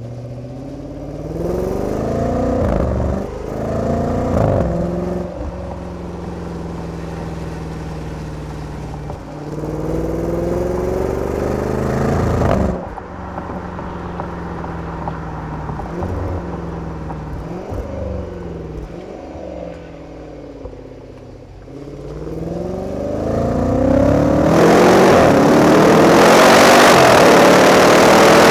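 Exhaust of a Range Rover Velar SVAutobiography's supercharged 5.0-litre V8, heard at the tailpipes while the car is driven. It accelerates in several pulls, the pitch climbing and dropping back at each gear change, with a sudden lift-off about halfway through. The longest and loudest full-throttle run comes near the end.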